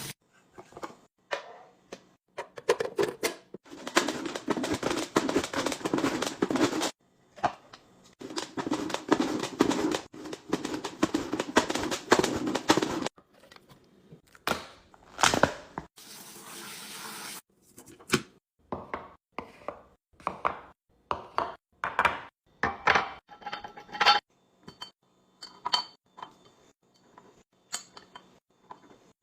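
Food containers and packaging being handled while restocking a fridge. There are two longer stretches of steady rustling, about three and five seconds long, then many separate light clicks, clinks and knocks as items are set down.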